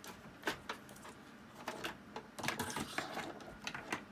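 Handling noise: irregular light clicks and taps, spaced unevenly, a few clustered near the middle and latter half.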